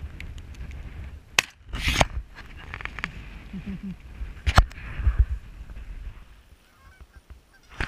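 A large flock of Canada geese honking overhead, cut by a few sharp, loud bangs, about one and a half, two and four and a half seconds in.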